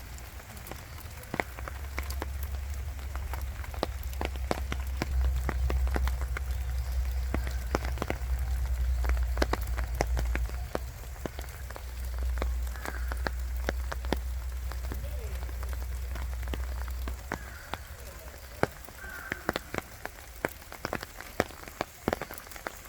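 Rain falling in a forest: an even patter with many scattered sharp drop hits. A low rumble runs underneath until about three-quarters of the way through, then drops away.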